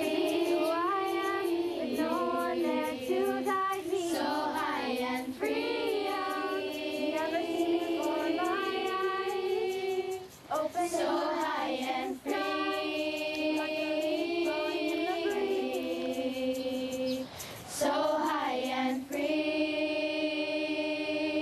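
A group of young girls singing a song together, with long held notes, short pauses for breath, and a final note held for a couple of seconds near the end.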